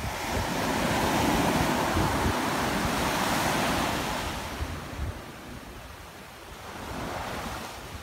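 Surf breaking and washing up a sandy beach: a long wash of waves that swells for the first few seconds and dies away, then a smaller one building near the end. Wind buffets the microphone throughout.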